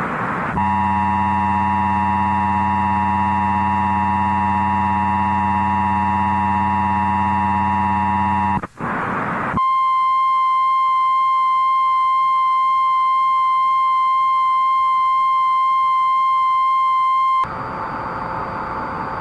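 Emergency Alert System alert tones. First a harsh, buzzing attention signal is held for about eight seconds. After a short burst of static, a single steady tone sounds for about eight more seconds, followed by static near the end.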